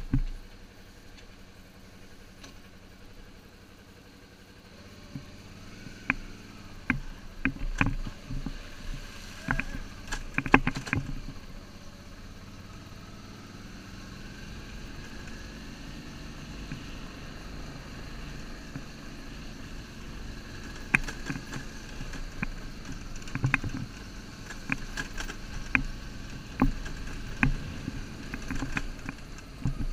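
Motorcycle engine running at low speed on a rough dirt track, getting louder about five seconds in, with sharp knocks and rattles as the bike jolts over stones and ruts.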